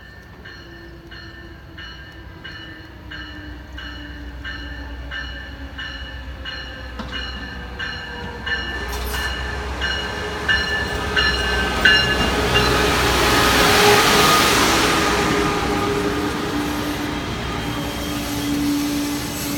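Amtrak passenger train pulling into the station. A bell rings at an even pace while the train's rumble grows louder, swelling to a peak about two-thirds of the way through as the cars pass, then easing off.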